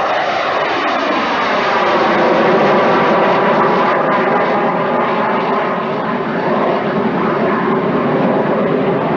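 Small BD-10 jet's General Electric CJ610 (J85) turbojet at takeoff power, climbing out just after liftoff. Its whine slides down in pitch over the first couple of seconds as it passes, then holds steady over the loud rushing jet noise.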